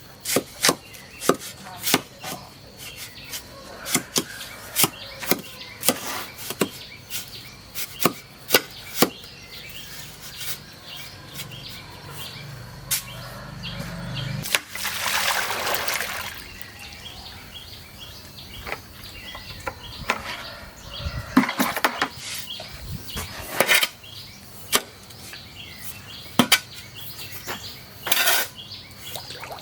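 Kitchen work at a wood-and-utensil level: irregular knocks, taps and clatter of wood and cookware, with a brief rushing noise about halfway through.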